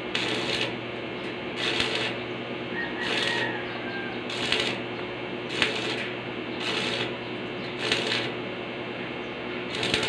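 Stick (arc) welding: the electrode's arc crackling and sputtering in short bursts about once a second, as a barrel bolt is stitch-welded to a steel gate. A steady hum runs underneath.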